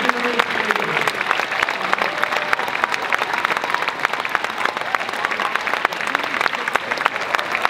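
Large audience applauding: a dense, continuous patter of clapping, with a few voices calling out in the crowd.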